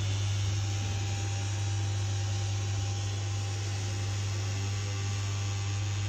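Electric motor drive of a remote-controlled fold-down wall table running with a steady low hum as the tabletop lowers to level.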